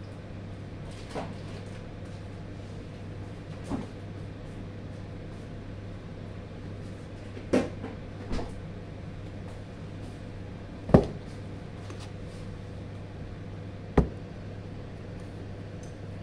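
Household kitchen work: about six scattered knocks and clunks of things being handled and set down, the sharpest about eleven seconds in, over a steady low hum.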